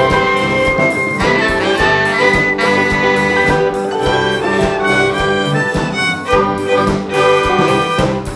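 Orchestra of strings and winds playing a piece, a run of held and changing notes with light percussion, picked up through close stage microphones.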